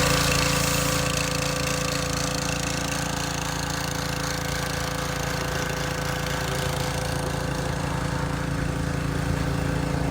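An engine running steadily at one speed with an even hum that does not change pitch.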